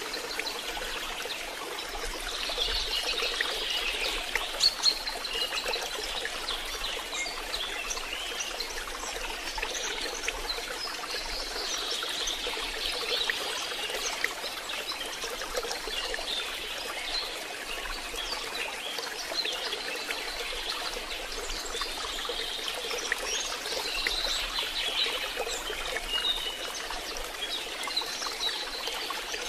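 Rain falling steadily, with water running and trickling, at an even level throughout. Faint short high chirps come and go over it.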